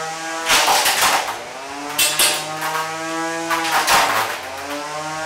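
Combat robots' electric motors whining at steady, shifting pitches, broken by three sharp crashes as the robots hit each other and the arena.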